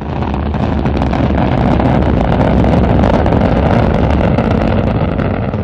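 Rocket engine roar: a loud, steady rumble with crackle. It dips briefly at the start, builds back within about a second and holds, then begins to fade near the end.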